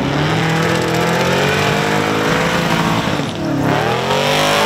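A supercharged Holden Commodore burnout car's engine is held at high revs while its rear tyres spin in a burnout. The revs drop sharply about three and a half seconds in, then climb again.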